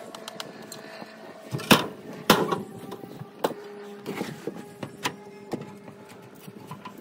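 Metal seat frame knocking and clanking against the boat's deck as it is handled and tipped over, in a string of sharp knocks, the two loudest about two seconds in. A faint steady hum runs underneath.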